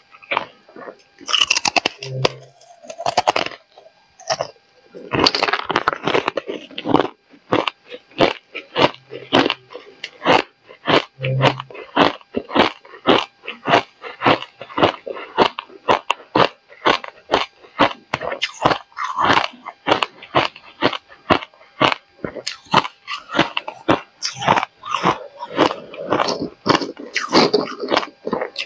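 Hard ice being bitten and chewed: molded discs of coloured ice crunching between the teeth in a rapid, irregular run of sharp crunches, several a second, with brief pauses.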